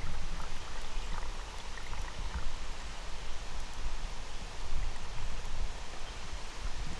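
Outdoor ambience: wind gusting on the microphone as an uneven low rumble under a steady hiss, with a few faint high chirps about one to two and a half seconds in.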